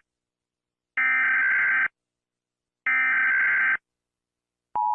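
Emergency Alert System SAME header data bursts: harsh buzzy screeches of about a second each, twice, with a second of silence between. Near the end the steady two-tone EAS attention signal begins, announcing an alert message.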